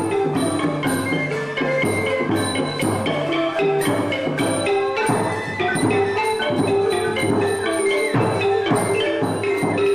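Traditional Khmer folk dance music with xylophone-like mallet notes and drum strokes keeping a steady beat.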